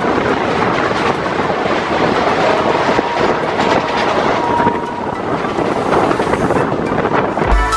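The Patna Janshatabdi Express running at speed, heard from its own coach: a steady rumble with the clatter of wheels over the rails. Music comes in at the very end.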